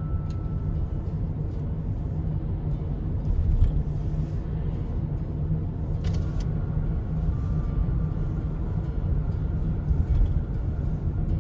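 A steady low rumble, with one brief sharp click about six seconds in.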